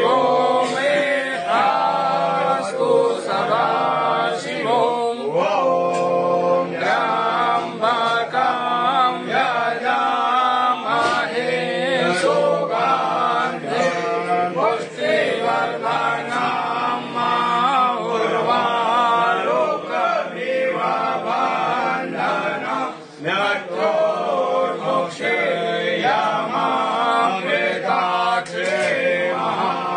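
Male voices singing a Hindu devotional chant over a steady drone.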